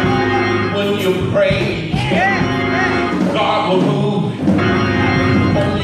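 Church music: a voice singing in long phrases that sweep up and down over steady held chords.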